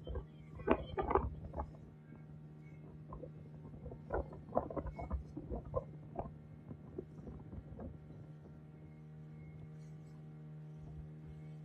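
A motorboat's engine runs at a steady low drone while the hull cuts through choppy water. Irregular splashes and slaps of water against the hull come through, heaviest about a second in and again around four to six seconds in.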